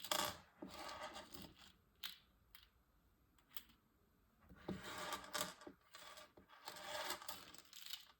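Handling noises of small metal filling pieces and a plastic ball being worked: rustling and scraping with a few sharp clicks, and a short quiet pause in the middle.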